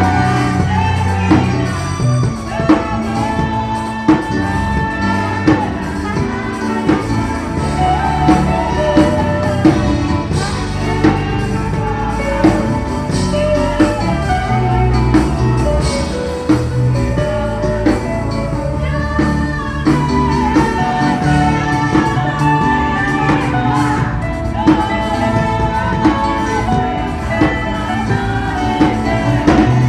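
Mass choir singing a gospel song to band accompaniment, with drums keeping a steady beat.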